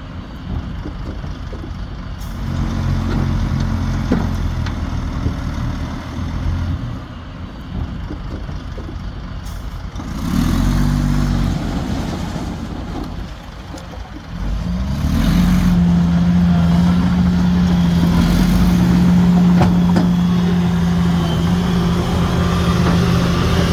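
Heavy diesel engines of earthmoving machinery, a bulldozer and dump trucks, running under load. About fifteen seconds in, one engine revs up and holds a steady high pitch.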